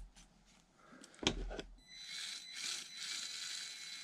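A click, then from about two seconds in the small electric motor and gearbox of a Traxxas TRX-4M crawler whirring steadily with a thin high whine, running now on a charged battery.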